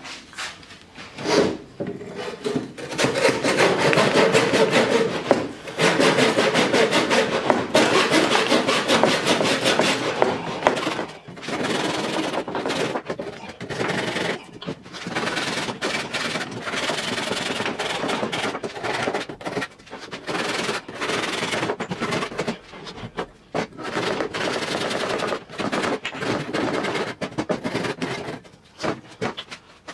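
Hand saw cutting by hand into a solid hardwood block, rapid back-and-forth strokes rasping through the kerf. There are a few short pauses between runs of strokes.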